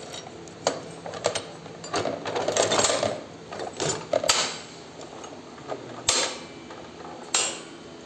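Irregular metal clinks, knocks and rattles from the steel parts of a two-hopper seed drill being handled and set in place during assembly, with a longer clattering stretch about two seconds in and single sharp knocks later on.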